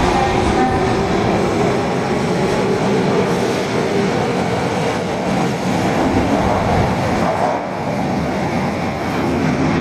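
Osaka Metro Tanimachi Line subway train running, a steady rumble of wheels and motors with a faint whine over the first few seconds.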